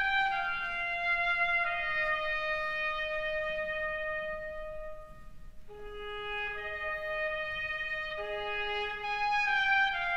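Instrumental intro music: a slow melody of long held notes, with one long note held for a few seconds and a short dip in level about five seconds in before the melody resumes.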